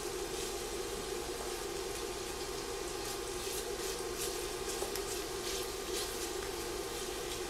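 Chopped smoked bacon sizzling and crackling as it begins to fry in an enamelled Dutch oven, stirred around the pot with a wooden spoon. A steady hum runs underneath throughout.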